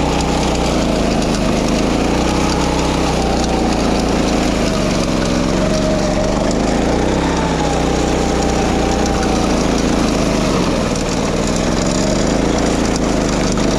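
Walk-behind wing mower's small petrol engine running steadily under load while cutting grass, its pitch drifting slowly up and down.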